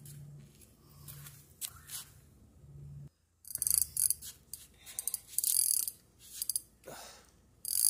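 Spinning fishing reel being worked by hand, its mechanism ratcheting in short bursts of clicking from about halfway through.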